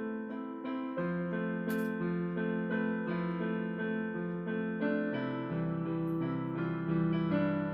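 Background music played on piano, a melody moving from note to note at roughly two to three notes a second.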